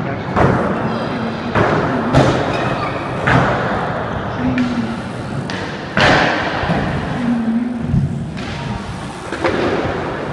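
Riders' wheels and landings hitting skatepark ramps: about six sharp bangs and thuds spaced unevenly over a steady rolling rumble, with a hall echo after each impact.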